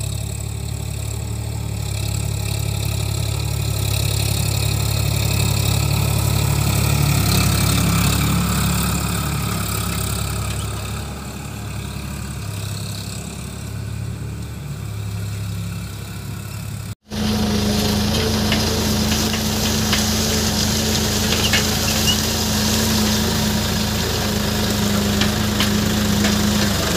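Sonalika DI 47 RX tractor's diesel engine running steadily under load as it pulls a cultivator through the field, growing louder over the first several seconds and then easing off. After a sudden cut, a steady engine drone from close to the cultivator, with fine crackling as the tines break up the soil.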